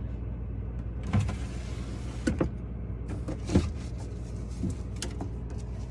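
Food containers and packages being handled and moved around inside a refrigerator: a stretch of rustling about a second in, then several light knocks and clicks. A steady low hum runs underneath.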